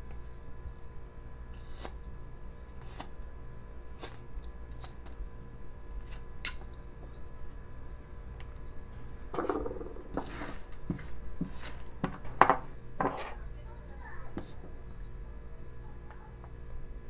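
Carving knife slicing a basswood blank in short, separate scraping cuts. Near the middle come louder rustling and a few sharp knocks as things are handled on the wooden table.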